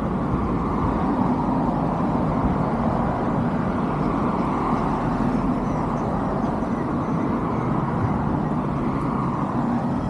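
Steady rumble of distant road traffic, an even noise without breaks or sudden events.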